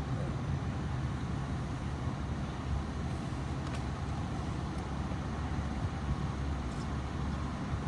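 Steady low rumble of a motor vehicle, unchanging throughout, with a few faint ticks.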